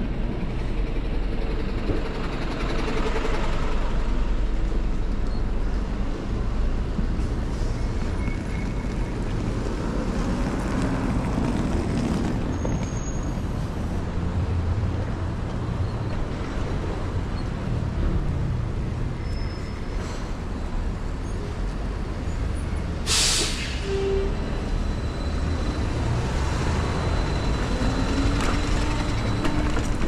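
Steady city street traffic: a continuous rumble of engines and tyres with buses and trucks passing. A short, sharp air-brake hiss comes about three-quarters of the way through.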